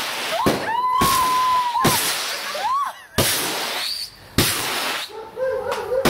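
A firework barrage firing shot after shot with sharp bangs. Several shots whistle as they go up, one holding a steady whistle for about a second.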